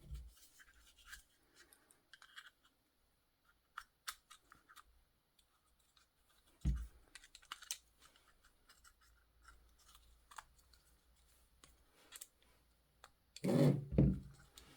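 Small plastic clicks and scratches from a car key remote's casing being handled during a battery change, with a duller knock about seven seconds in and a louder cluster of knocks near the end.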